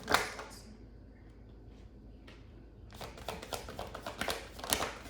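A tarot deck being handled and shuffled by hand: a sharp card snap at the start, then after a short pause a quick run of card flicks and slaps.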